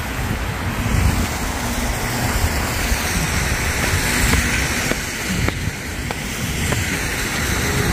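Wind blowing across a handheld phone's microphone: a steady rushing noise with a heavy low rumble that swells and dips.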